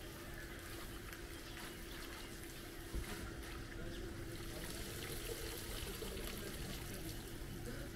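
Water trickling, over a steady hum, with a single knock about three seconds in.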